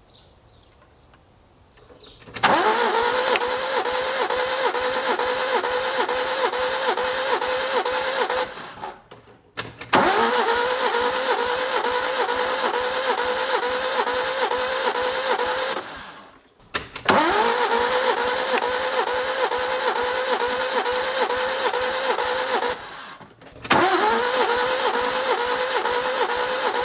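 Starter motor cranking an Alfa Romeo Giulia Super's four-cylinder engine with all spark plugs out, a steady whine that pulses with each compression stroke. It comes in four runs of about six seconds with short pauses between, one run per cylinder, as a compression gauge is read on each.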